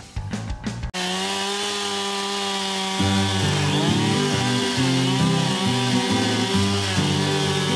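Gasoline chainsaw running at high revs as it cuts through a log, its engine pitch sagging and recovering under load partway through. A brief logo jingle with swooshes and clicks comes before it in the first second.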